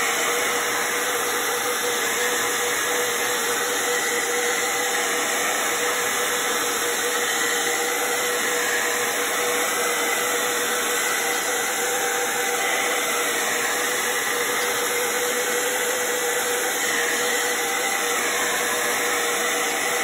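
Handheld hair dryer running steadily on hot air, blown over wet watercolour paint to dry it: an even rushing noise with a faint steady hum.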